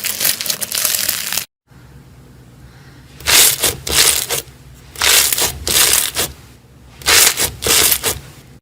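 Slime being squeezed and pressed by hand, giving a crackly, crunching noise. After a brief cut, it is squeezed in three bouts, each about a second long and about two seconds apart.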